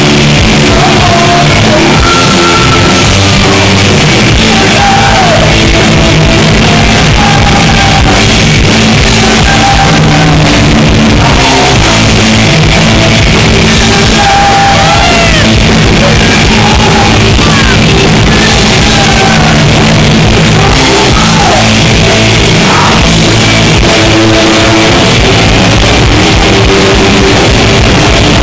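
Live rock band playing loudly, electric guitar through Marshall amps, with a singer shouting and singing over the band.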